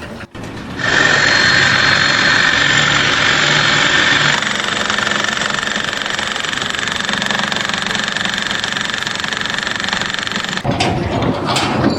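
A machine engine running steadily and loudly; it starts abruptly about a second in and cuts off suddenly shortly before the end.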